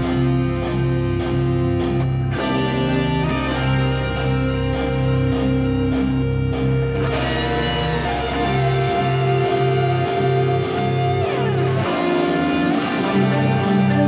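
Instrumental background music led by guitar through effects, over a low note pulsing about three times a second; a falling glide sounds about eleven seconds in.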